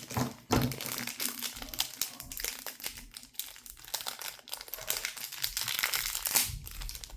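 Small plastic blind bag crinkling steadily as it is handled and opened with the fingers, a dense run of crackles.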